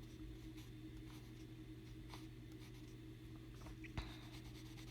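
Faint scratching of a colour pencil stroking over sketchbook paper as leaf veins are darkened, with a single sharp click about four seconds in, over a steady low hum.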